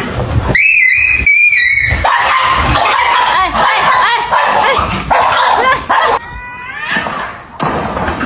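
Dog yipping and whining in a run of high-pitched cries, lower in pitch and more continuous from about two seconds in.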